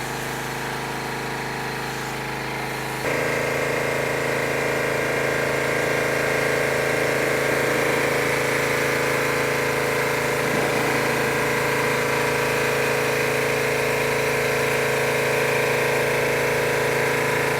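Pressure washer running steadily. About three seconds in it gets louder and fuller and then holds steady.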